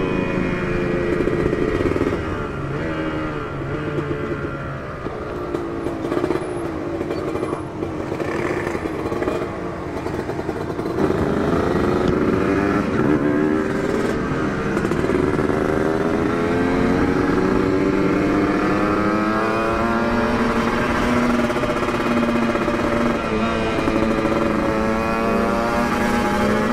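Two-stroke single-cylinder engine of a Kawasaki Ninja 150 motorcycle running through an aftermarket Aitech exhaust while being ridden. Its pitch rises and falls repeatedly as it accelerates and changes gear, and it gets louder from about eleven seconds in.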